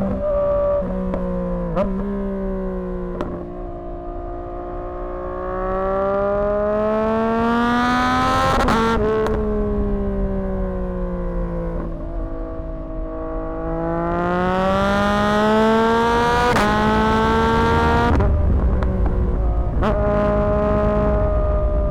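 A 2024 Yamaha MT-09's 890 cc three-cylinder engine running through a Dominator HP6 aftermarket exhaust while riding. The revs climb steadily twice, for about five seconds each time, and fall back in between. The note breaks briefly a few times in the first three seconds.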